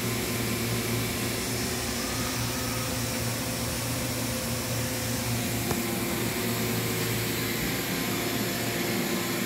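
Steady din of running machine tools in a machine shop: an even hum and hiss with no sharp events.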